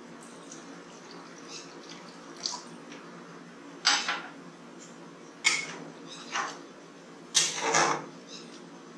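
Water poured into a pan of cooked dal, then a metal spoon stirring the wet dal and scraping and knocking against the metal kadai in several separate strokes during the second half.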